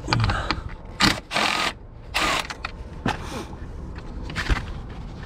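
Several short bursts of scraping and clattering: screws being taken out of a car's plastic lower active grille shutter, with the plastic parts handled.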